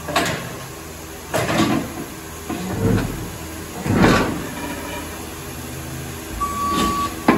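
Stand-up electric forklift lifting a steel loading-dock plate on its forks: a steady motor hum with scraping and clanking of the steel plate, the loudest clank about four seconds in. A short beep near the end.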